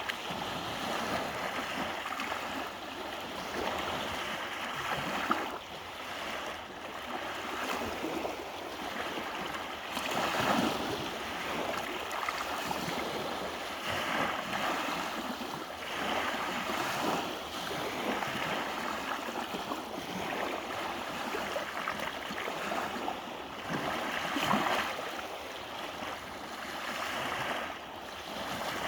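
Sea waves washing onto the shore: a steady wash of surf that swells every few seconds as each wave breaks.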